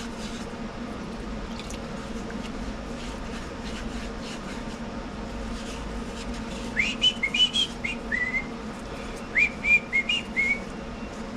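Someone whistling a short tune of about a dozen quick notes in two phrases, starting about seven seconds in. Each note slides up and then holds. Under it runs a steady low hum, with a few faint clicks.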